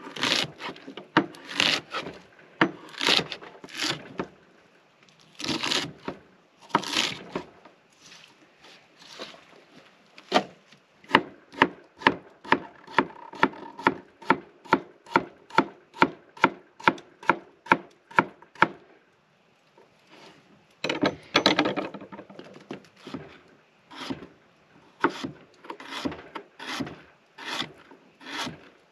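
Chef's knife chopping vegetables on a wooden cutting board, each stroke a sharp knock. The romaine comes first, then cucumber slices in a fast, even run of about three strokes a second, then radishes near the end.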